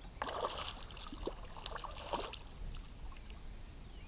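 Light, irregular water splashing: a hooked smallmouth bass thrashing at the surface as it is reeled in close to a small aluminum boat.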